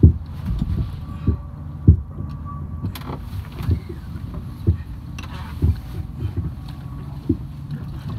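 Lake water slapping against a fishing boat's hull in irregular low thumps, roughly one a second, over a steady low rumble.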